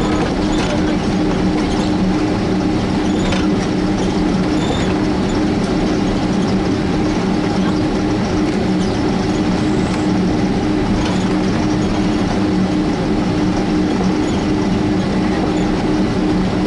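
Cabin noise of a Boeing 767-300 taxiing: the jet engines running steadily, with two held low hum tones over an even rushing noise. A few faint knocks come through now and then.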